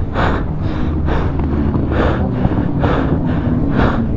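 Rider panting hard inside a motorcycle helmet, quick even breaths about two a second: out of breath just after a crash.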